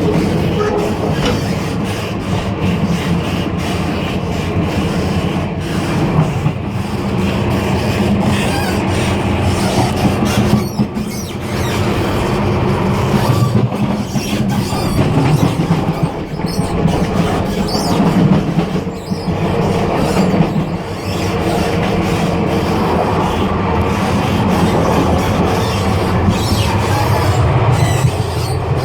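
Running noise in the gangway between cars of a Taiwan Railways EMU800 electric multiple unit: a loud, steady rumble with constant rattling and clicking from the car connection and wheels on the track.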